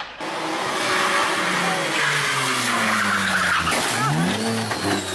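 A rally car's engine drops in revs, then blips up and down again, over a steady hiss of skidding tyres.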